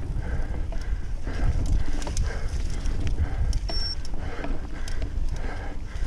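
Mountain bike ridden along a dirt trail, heard on a helmet or bike-mounted action camera. There is a steady low rumble and rattle of the bike over the ground and hard rhythmic breathing about twice a second. A short high squeak comes just before four seconds in.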